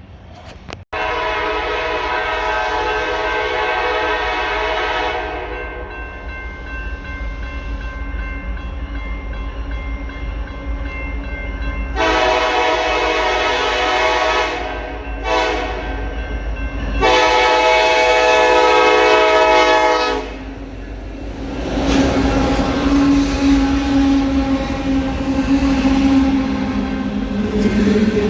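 Nathan K5LLA five-chime air horn on a CN EMD SD70ACe diesel locomotive sounding a long blast, another long, a short and a final long one: the standard grade-crossing signal. The locomotive's engine rumbles underneath, and after the last blast the train passes with wheels clattering on the rails.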